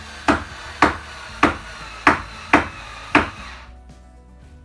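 Seven sharp knocks on wood, a little under two a second, stopping about three seconds in, from work on a plywood table top. Soft background music plays underneath.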